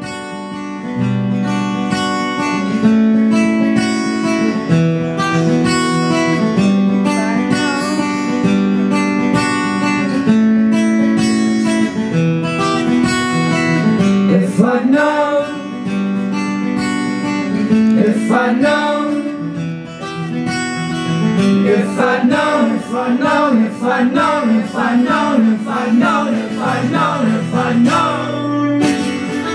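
Acoustic guitar strummed together with a mandola playing melodic lines, a live instrumental passage of a folk-punk song.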